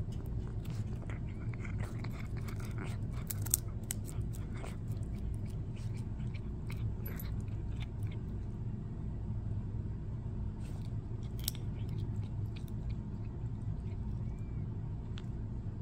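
A cat chewing and biting on a wooden stick: irregular crunching clicks, thickest in the first half and again about two-thirds of the way through, over a steady low hum.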